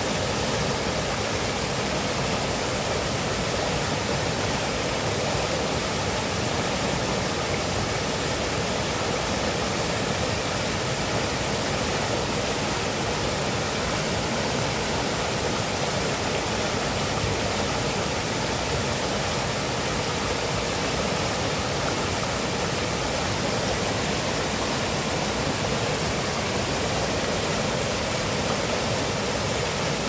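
Small waterfall in a rocky stream, white water rushing and splashing steadily over the boulders.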